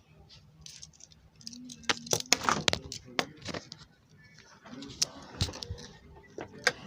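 Objects being handled: scattered clicks, knocks and rustling, busiest about two to three seconds in and again around five seconds, with faint voices in the background.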